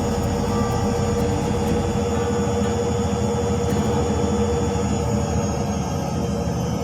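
Zanussi ZWY61025CI top-loading washing machine running empty on a test cycle with new drum bearings fitted, its motor and drum giving a steady hum and whine. A faint high whine slowly falls in pitch over the last couple of seconds.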